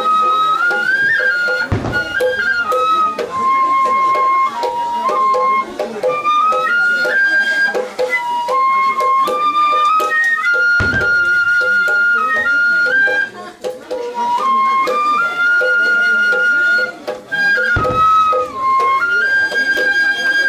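A Japanese bamboo transverse flute (shinobue) playing a slow melody of long held notes that step up and down, with a deep drum beat struck three times under it.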